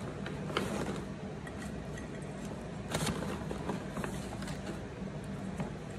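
Low steady hum with a few faint clicks and rustles as dried mango slices and their bulk bag are handled while filling a glass jar.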